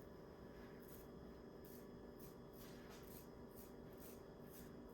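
Faint scratchy flicks of a toothbrush's bristles, a few a second and coming faster after about two seconds, spattering thin red colouring from the brush.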